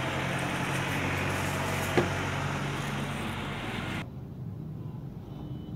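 Street ambience with a steady low engine hum and a single sharp click about two seconds in. About four seconds in, the sound drops abruptly to a quieter background.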